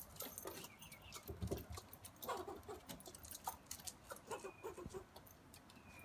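A squirrel scolding from a tree trunk: irregular rapid clicks and short high chirps, with claws scratching on the bark as a small dog scrabbles up at the trunk.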